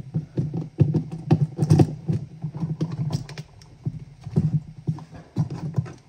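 Screwdriver turning and tightening the brass terminal screws on an electrical outlet with built-in USB: a run of irregular clicks and knocks of the tool on the screw heads and outlet.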